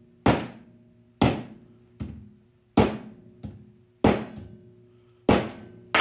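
Pick hammer striking a wooden pencil on a metal workbench: about seven sharp blows, roughly one a second, some lighter than others. Each leaves a short metallic ring from the bench.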